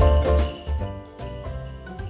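Background music led by jingling sleigh bells over a steady beat and bass, growing quieter about a second in.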